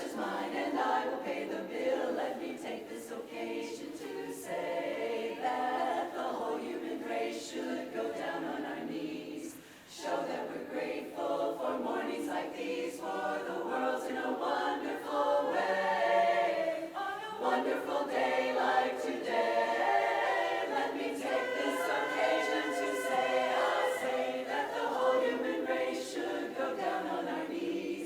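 A cappella chorus of 23 singers singing, with a short break about ten seconds in.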